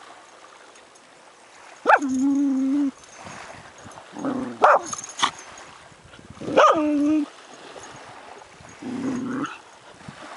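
Potcake dog making four excited calls at a crab it has dug up. Each is a short yelp that drops into a held whine. A couple of sharp clicks come around the middle.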